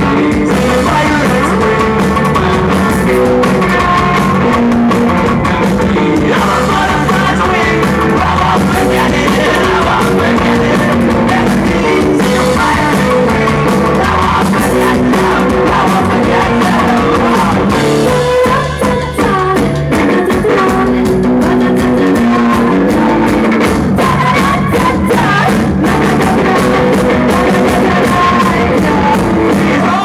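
Live rock band playing loud: electric guitars, bass and drum kit, with a singer's voice over them. The music dips briefly a little past halfway, then carries on.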